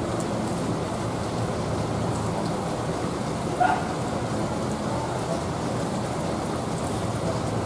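Steady rain falling on pavement and surfaces, with the low hum of a coach's engine as it pulls out beneath it. A single brief, higher-pitched blip comes about three and a half seconds in.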